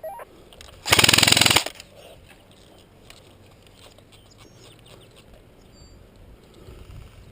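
Airsoft gun firing one short full-auto burst of rapid shots about a second in, loud and close to the microphone.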